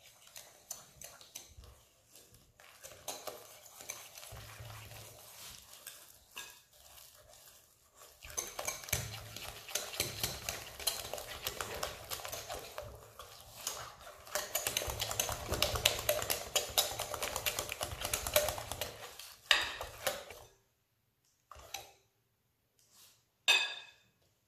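Wire whisk beating crêpe batter in a glass bowl, working the flour into the eggs: a fast run of clicks as the wires strike the glass, growing louder about eight seconds in and stopping shortly before the end, followed by a few single knocks.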